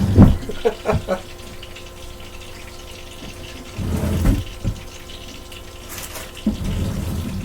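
Potato pancakes sizzling steadily in hot oil in a frying pan, with a cluster of sharp clatters and knocks of kitchen utensils in the first second and more handling noise twice later on.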